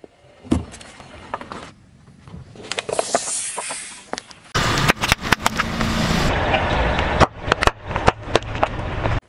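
A car tyre slowly rolling over and crushing small objects on asphalt, in several short clips that change abruptly. There are crackles, cracks and crunches as a food carton, rubber toys and a gel-filled toy are flattened, and the car rumbles low under them.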